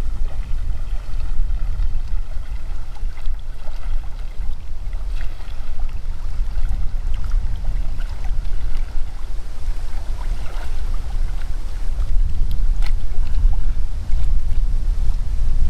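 Wind rumbling on the microphone over water lapping at a kayak, with a few small sharp splashes or ticks scattered through.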